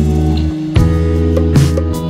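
Instrumental background music: strummed guitar over a steady bass.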